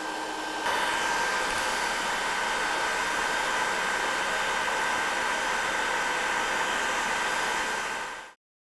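Cooling fans of a custom-built pfSense router running steadily: an even whirring rush with a thin high whine held on one pitch. It grows a little louder about a second in and fades out near the end.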